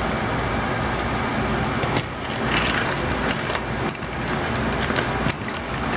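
Crab claws in ginger garlic sauce bubbling and hissing in a hot pan, with a metal ladle clicking and scraping against the pan from about two seconds in.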